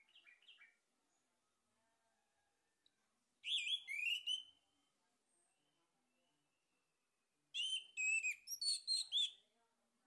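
Male orange-headed thrush singing: two loud phrases of clear whistled notes with quick up-and-down slurs, one about three and a half seconds in and one near the end, after a faint short phrase at the start.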